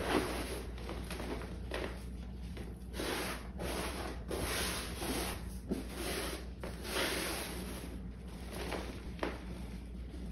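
Bare hands squeezing, scooping and patting crushed dyed gym chalk, giving an uneven run of crunches and rubs in the powder.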